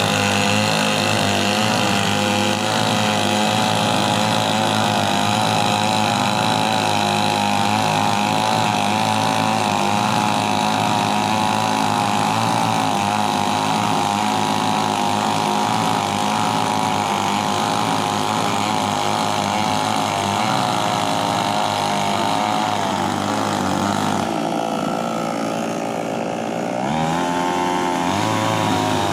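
Chainsaw running hard as it cuts coconut-palm wood, its engine pitch wavering with the load. About three-quarters of the way through, the engine drops to a lower, quieter run for a few seconds, then revs back up.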